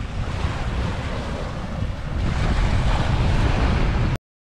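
Wind buffeting the microphone over a steady rushing noise, getting a little stronger partway through, then cutting off suddenly near the end.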